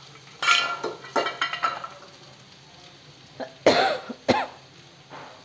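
A person coughing in several short bursts, the loudest about two-thirds of the way through.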